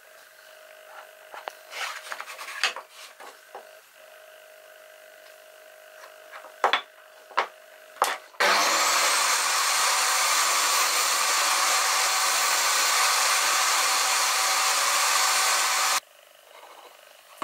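Wooden shelf pieces being handled and marked on a worktable, with scattered light knocks and rubbing. About eight seconds in, a loud, steady power-tool noise starts abruptly, runs for about seven seconds and cuts off suddenly.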